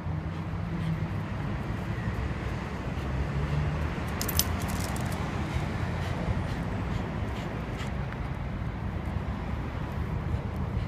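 Steady low outdoor rumble, with a brief metallic jingle about four and a half seconds in.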